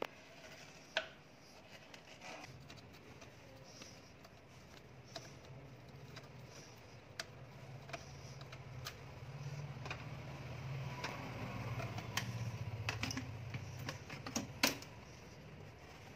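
Scattered small clicks and taps of a screwdriver and hands on hose clips and engine-bay fittings as a rubber air-intake pipe is worked loose. The sharpest clicks come about a second in and near the end, with a low rubbing sound in the second half.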